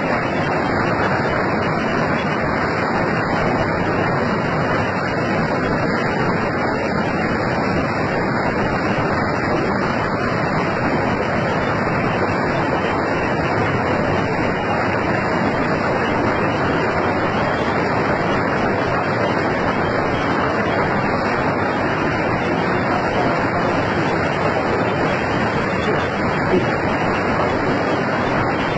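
Muddy floodwater rushing through a street in a flash flood, a loud, steady torrent.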